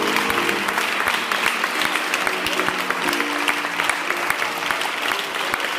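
A group applauding steadily while a grand piano plays sustained chords underneath, one at the start and another about three seconds in.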